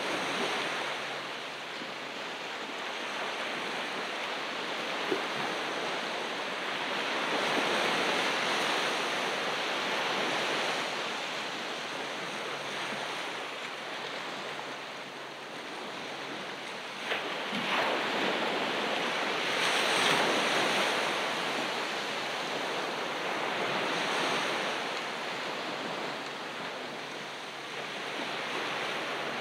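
Ocean waves breaking and washing up the beach, a steady rushing surf that swells and ebbs every few seconds, with some wind on the microphone. A sharp click about 17 seconds in.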